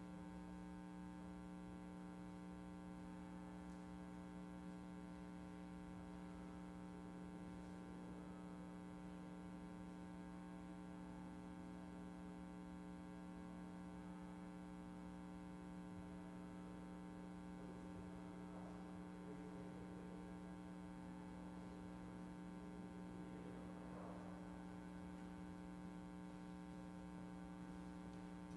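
Faint, steady electrical mains hum: a low, unchanging drone with a thin buzzy edge.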